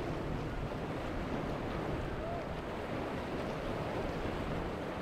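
Steady outdoor ambience of wind and water, an even wash with no distinct events.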